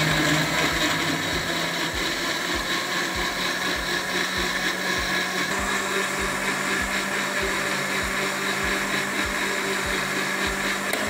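Countertop blender running steadily at full speed, its motor whining over the churn of peach slices, sugar and water being puréed into juice. The motor's pitch steps up slightly about halfway through, once the fruit has broken down into a smooth liquid.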